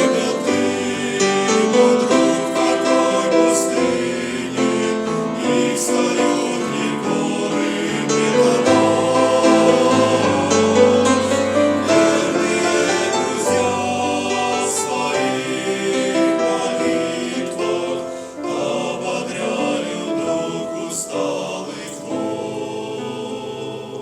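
Music with a choir singing over instrumental accompaniment, steady and fairly loud throughout.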